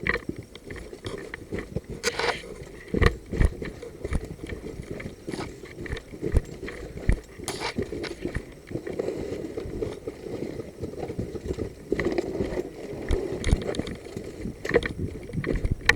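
Footsteps crunching over rough dirt and gravel, with gear and clothing rustling and knocking against the body-worn camera. There are uneven steps and a few sharper knocks.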